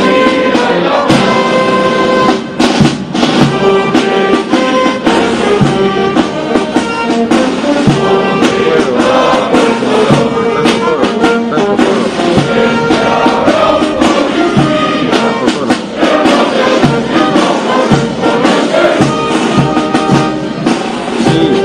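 Brass band music with drums, playing without pause.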